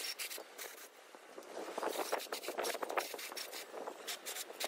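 Irregular clinks and scrapes of small metal motorcycle parts being handled and hooked onto a hanging wire.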